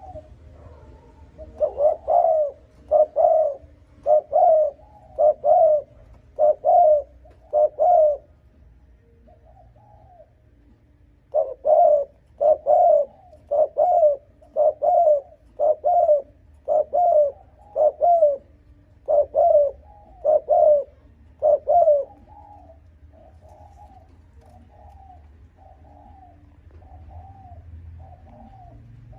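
Spotted dove (cu gáy) cooing in a rapid run of loud, evenly spaced coos, about one a second, with a brief pause around ten seconds in and softer coos near the end.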